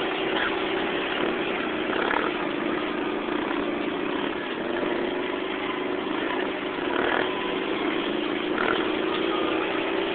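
Quad bike (ATV) engine running at a steady held throttle as it carries a long wheelie on its rear wheels. The note sags a little about halfway through, then steadies again.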